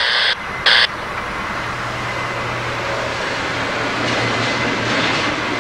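Freight train rolling by, with the steady drone of diesel locomotive engines coming in about a second and a half in and slowly growing louder. In the first second, two short bursts of loud hiss start and stop sharply.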